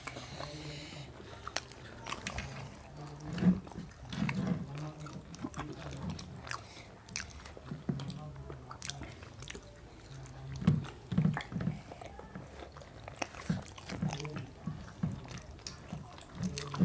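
People chewing and biting into jowar roti with curry: irregular soft chewing and biting sounds with scattered small clicks, over a steady low hum.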